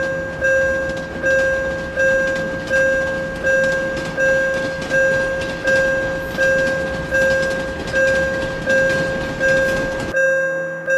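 Japanese railroad crossing warning bell dinging steadily, about one and a half strikes a second, each ding decaying before the next. A noisy rumble runs underneath and cuts off sharply about ten seconds in, while the bell keeps going.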